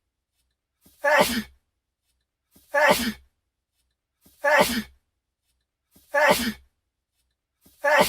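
A man's short sneeze, the same one looped over and over: five identical sneezes about every second and a half, each with a faint catch of breath just before it.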